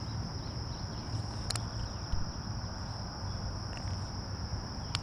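Steady high-pitched drone of insects, over a low rumble, with two sharp clicks: one about one and a half seconds in and one near the end.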